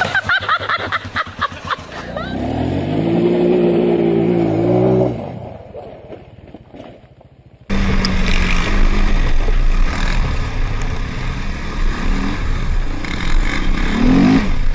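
Quad (ATV) engines in two cut-together clips. A single engine revs up and holds for a few seconds, then fades. After an abrupt cut about eight seconds in, quads run steadily along a dirt trail, heard from the rider's seat.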